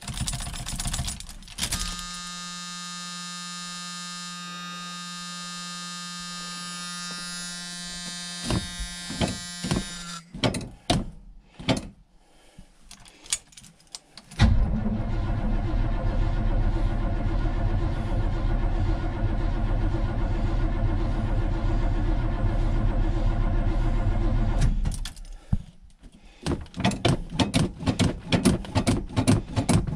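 1978 Suburban's starter cranking the cold engine for about ten seconds without it catching, then stopping abruptly. Before it, with the key on, a steady electric buzz runs for about ten seconds. Around the cranking, keys on the ring jangle and click.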